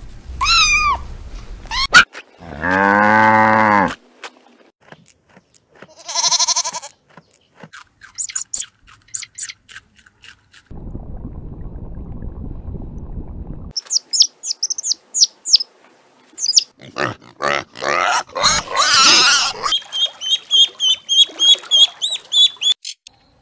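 A string of different animal calls. Kittens mew at the start, then a long, low bleating call from a farm animal and a shorter, higher call follow, then bird chirps and a few seconds of low steady noise. Near the end mallard ducklings peep rapidly.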